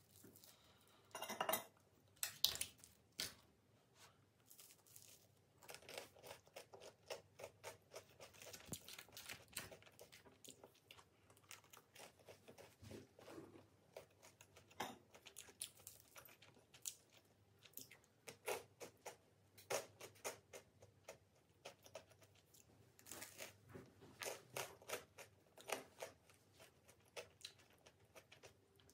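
Eating sounds: crusty garlic bread being torn apart, loudest about a second and a half in, then repeated small crunches of chewing the bread.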